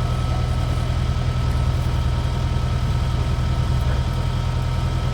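A vehicle engine running steadily at low revs, a constant low hum with no change in speed.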